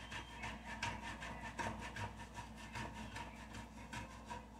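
Frozen block cheese rubbed by hand against a stainless-steel box grater: faint, repeated rasping strokes, about two to three a second.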